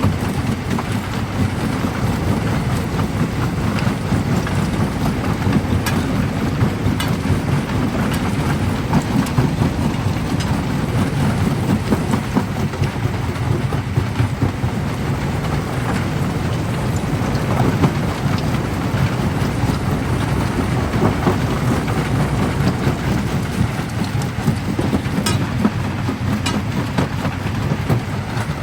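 Primary jaw crusher crushing black stone: a steady heavy rumble from the machine, with scattered sharp cracks of rock breaking through it.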